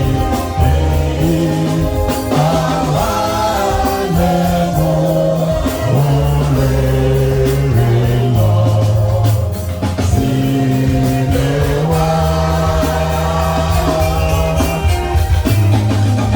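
Gospel music: singing over a band with a strong bass line and a steady beat.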